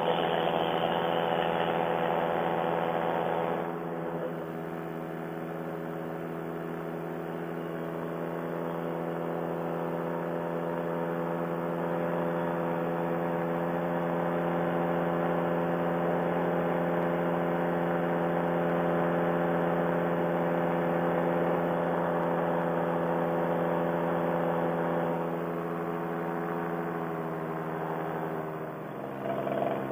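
A paramotor's engine and propeller drone steadily in flight with an even, humming pitch. Near the end the pitch drops as the throttle is eased back.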